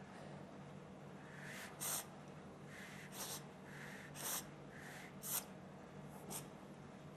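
Short, sharp puffs of breath blowing out e-cigarette vapour, five in all about a second apart, some with a fainter hiss just before, over a low steady hum.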